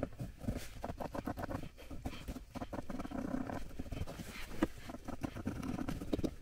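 Cloth rubbed and dabbed quickly against a synthetic fabric cabin panel, a rapid run of scratchy scuffs, as solvent-dissolved pen ink is lifted off.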